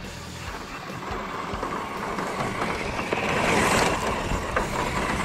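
Electric 1/10-scale RC truck (CEN Racing F450) driving on loose dirt, its motor and tyres getting louder as it comes close about three to four seconds in, spinning its wheels and throwing up dirt.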